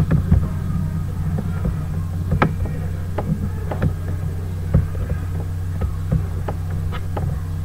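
Steady low electrical hum with a few sharp clicks scattered irregularly through it.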